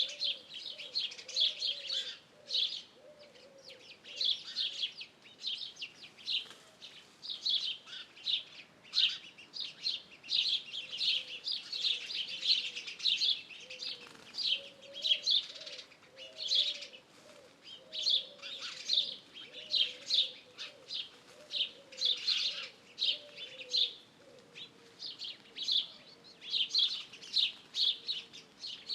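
Outdoor birdsong chorus: many small birds chirping and trilling in rapid high notes, with a pigeon cooing in low repeated phrases underneath at the start and again through the middle.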